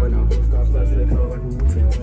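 Hip-hop track with a deep, sustained bass line, a steady hi-hat and rap vocals.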